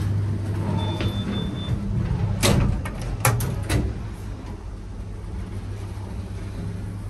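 Vintage OTIS lift doors opening, with a short high beep about a second in and a cluster of sharp clunks halfway through, over a steady low hum.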